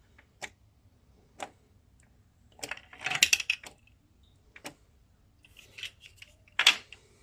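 Scattered light clicks and clatter of small hard items being handled, busiest about three seconds in, with one sharper click near the end.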